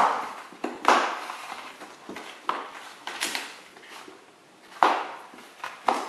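Snap-on plastic bucket lid being pried off by hand, its rim popping loose from the bucket in a series of sharp snaps, about one a second.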